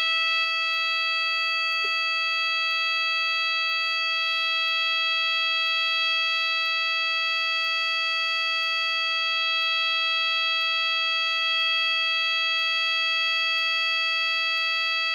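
AE&T T105N fire alarm sounder sounding its tone number 19: one unbroken, steady tone held at a single pitch, with no pulsing or sweep.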